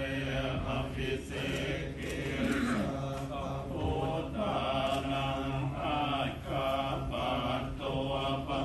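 Thai Buddhist monks chanting together in Pali, men's voices in a steady, evenly paced recitation.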